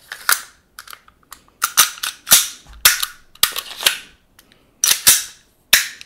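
Slide of a WE Glock 19 gas blowback airsoft pistol being put back onto the frame and worked by hand: about a dozen sharp clacks of plastic and metal parts, irregularly spaced.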